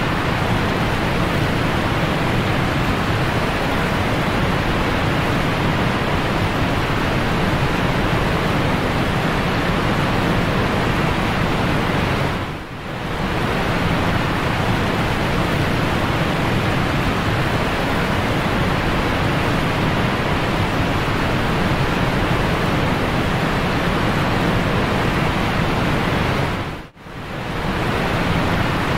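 Steady, even rush of ocean surf, loud and unbroken, that dips briefly twice, about halfway through and near the end.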